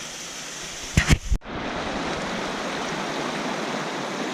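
Steady rush of water from a waterfall or stream. About a second in come three sharp knocks and a momentary dropout, then the rushing water carries on slightly louder.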